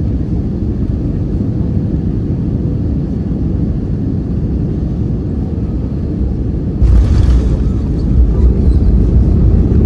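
Cabin noise of an Airbus A319 on landing: a steady low rumble of engines and airflow, then about seven seconds in a sudden, louder rumble and hiss sets in and holds, the touchdown and roll of the wheels on the runway.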